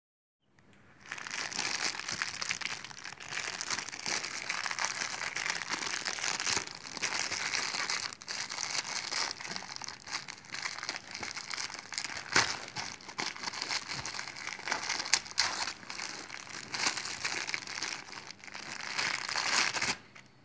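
Thin clear plastic packaging bag crinkling steadily as hands work it open, with a few sharper crackles along the way. It stops suddenly near the end.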